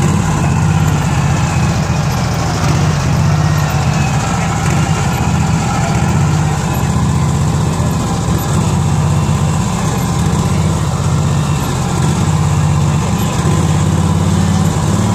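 An engine running steadily with an even low drone.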